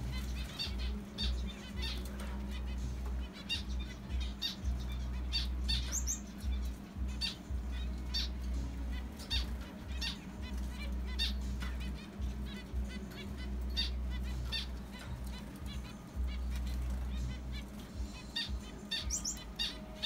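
Zebra finches giving short, repeated chirping calls, one or two a second, with a couple of quick rising high notes. A low rumble comes and goes underneath.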